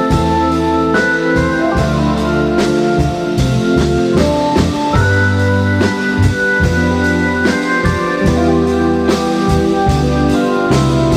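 Music with a drum-kit beat over held bass and pitched notes that change every second or two.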